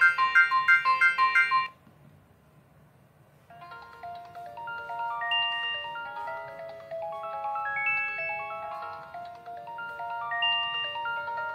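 ZTE Z222 phone speaker playing Samsung ringtones. A fast, repeating pattern of bright notes cuts off about two seconds in, and after a short pause the next ringtone begins, a flowing melody of short notes.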